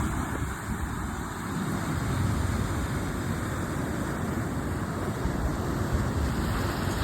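Sea waves washing steadily on the shore, with wind gusting against the microphone and rumbling underneath.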